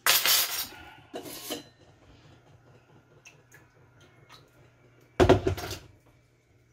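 Kitchen clatter: a metal spoon is set down hard on a tiled counter near the start, with a second smaller clatter just after. About five seconds in, a heavier knock as an electric kettle is set back on its base.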